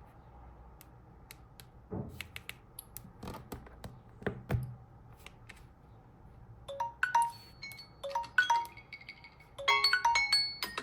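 A few scattered clicks and taps, then a smartphone alarm tone starts about seven seconds in: short chiming notes of a melody at several pitches, growing busier and louder near the end.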